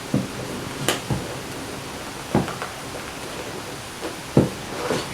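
Light taps, knocks and clicks, about seven of them at irregular intervals, from an iPhone box and its packaging being handled and opened, over a steady hiss; the loudest knock comes near the end.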